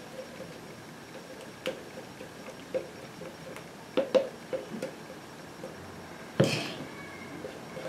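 Spatula stirring and scraping thick flaxseed gel in a plastic jug: soft squishing with small clicks and taps, and one louder knock about six and a half seconds in.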